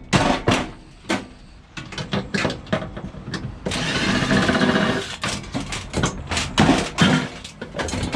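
Metal parts of a scrap microwave being handled and pulled apart, giving repeated sharp clanks and knocks. About four seconds in, a denser grating, buzzing sound lasts a little over a second.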